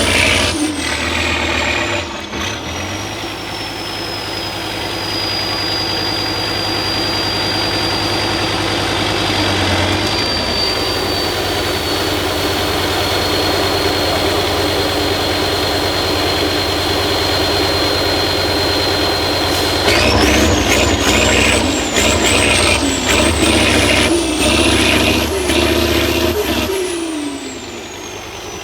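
Tatra 6x6 off-road truck's diesel engine running, with a high whistle that falls as the revs drop in the first few seconds and then holds steady. About two-thirds of the way through the engine is revved in several repeated bursts, the whistle climbing with each, before it eases off near the end.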